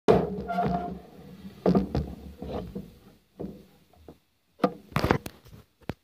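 A series of knocks and thuds, handling noise, with a few sharp clicks near the end.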